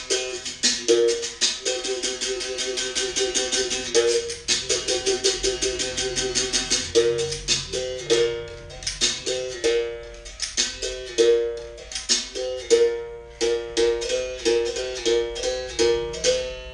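Berimbau playing a capoeira rhythm (toque): the steel wire of the musical bow is struck with a stick, alternating between a low open note and a slightly higher pressed note. A run of fast strokes comes a couple of seconds in.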